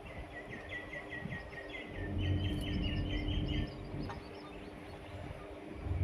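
A sparrow chirping in a quick, even series of about fifteen short notes that stops about three and a half seconds in. A low rumble runs underneath from about two seconds in.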